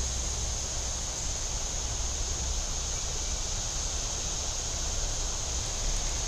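Steady creekside background noise: a constant hiss with a high, even band on top and low wind rumble on the microphone, with no distinct sounds standing out.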